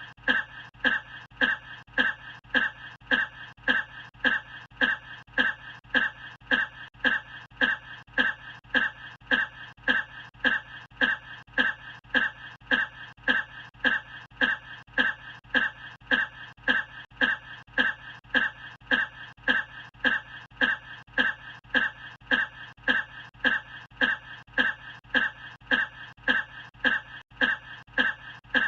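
A man's short cough looped, repeating identically and evenly about one and a half times a second.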